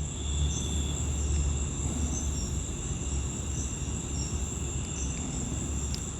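Insects trilling steadily in high, continuous tones, with short repeated chirps above them and a steady low hum underneath.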